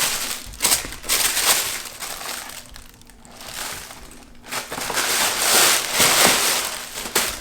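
Paper packaging rustling and crinkling in irregular bursts as a gift box is opened and its contents unwrapped, quieter for a moment midway.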